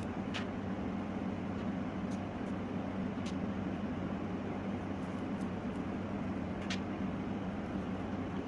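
Steady low background hum with a few faint, light clicks spread through it, from modelling clay being pressed onto a small clear plastic ball by hand.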